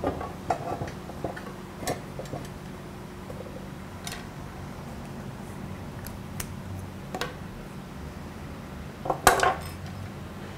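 Hand tools handled and set down on a steel bar and wooden bench: scattered light metallic clinks and taps, the loudest cluster about nine seconds in, over a steady low hum.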